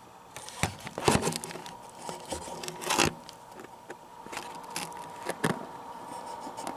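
Close handling noise: hands moving wiring and handling the camera, with irregular scrapes, rustles and sharp clicks. The loudest come about a second in and about three seconds in. A faint steady hum runs underneath.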